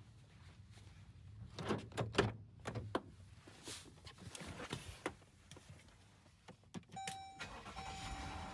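A few sharp clicks and clunks from the 2019 Jeep Grand Cherokee, then about seven seconds in its dashboard warning chime starts, a steady tone that breaks off briefly and resumes.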